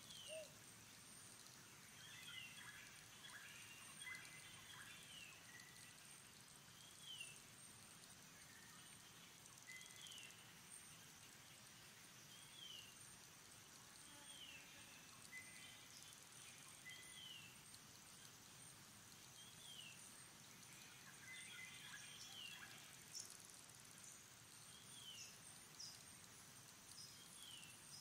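Faint outdoor ambience: a bird repeating a short falling whistled call every two to three seconds over a steady high insect hiss.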